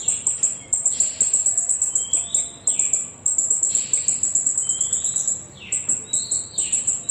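Jalak rio-rio starling calling: repeated whistled calls that rise and then sweep downward, several times. A high, rapidly pulsing buzz runs under them throughout.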